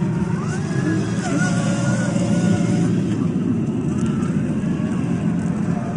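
Off-road vehicle engine running steadily, with faint voices in the background.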